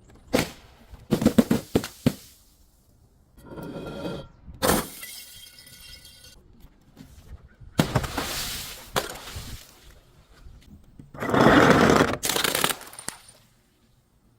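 Glass bottles and other objects being smashed and crushed: a series of separate crashes and crunches, with glass ringing and tinkling around four seconds in and the longest, loudest crunch about eleven to thirteen seconds in.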